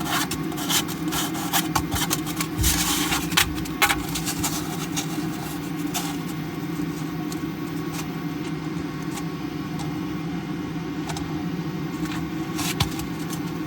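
3D-printed plastic playing cards clicking and clattering as they are handled and shuffled, most busily in the first few seconds and again briefly near the end, over a steady low machine hum.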